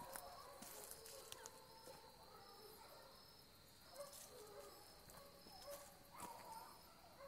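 Faint baying of hunting hounds trailing a fox: several short, bending howls about four to seven seconds in. Under them runs a steady insect drone with a regular pulse.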